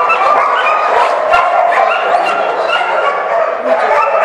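Several shelter dogs barking and yelping at once, their calls overlapping into a continuous din without a break.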